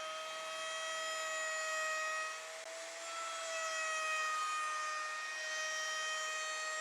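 CNC router spindle whining steadily as the bit carves into MDF, over a hiss of cutting. The pitch wavers slightly, and the sound dips briefly about two and a half seconds in.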